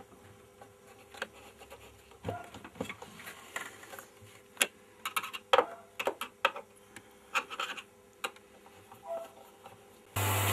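Screwdriver working screws into the bottom of a projector case: scattered clicks, taps and scrapes of metal. Near the end a loud steady hum cuts in abruptly.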